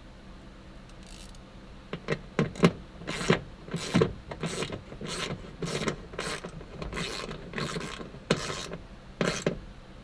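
Ratchet wrench tightening a seat belt mounting bolt. After a quiet first two seconds it clicks in short strokes, about two a second, until near the end.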